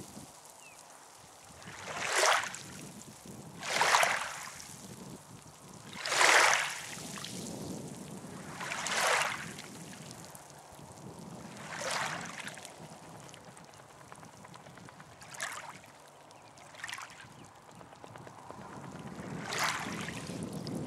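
Small sea wavelets lapping at the shore at the camera's edge, each a brief splashing hiss, about eight times at uneven two-to-three-second intervals.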